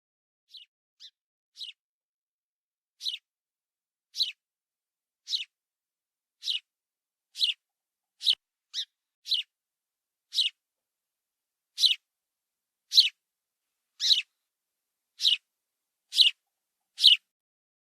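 House sparrow chirping: single short chirps, each a quick downward sweep, repeated about once a second, faint for the first few and then louder, with no other sound between them.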